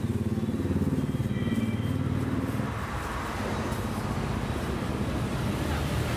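Motor traffic on the road, a steady low engine rumble.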